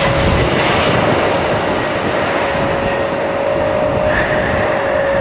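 Boeing 747's jet engines running loud during its landing: a dense roar with a steady whine.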